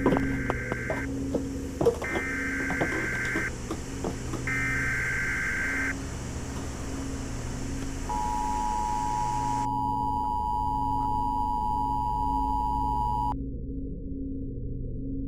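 Electronic sound design: three pulsed high beeps, each about a second and a half long, then a long steady tone that cuts off suddenly, over a low pulsing hum with a few clicks near the start.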